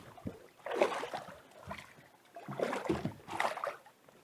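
Water splashing and sloshing beside a small fishing boat in two bursts, about a second in and again near three seconds, while a hooked bass is being brought to the net.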